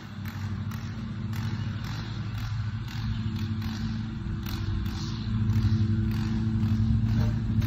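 An unseen engine running steadily at a constant pitch, getting louder a little past halfway through, with scattered light clicks and scrapes.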